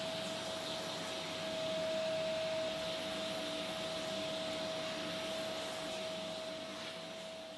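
Vacuum cleaner running steadily, a rushing air noise with a high steady whine, easing off near the end.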